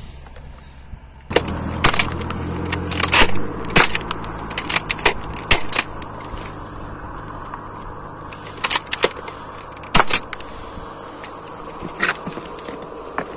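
A car engine starts about a second in and then idles steadily, with scattered sharp clicks and jangles on top.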